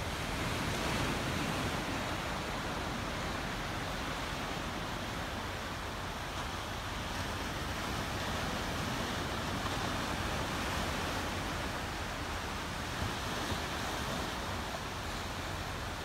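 Small sea waves breaking and washing up on a sandy beach: a steady surf hiss.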